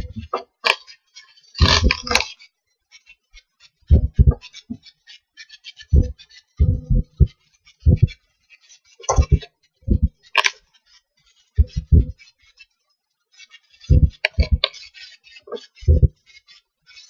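Loud, short low-pitched beeps or pops from a hackintosh's speakers at bootup, repeating irregularly about every one to two seconds. They are caused by the VoodooHDA audio driver chosen during the Mac OS X Lion install.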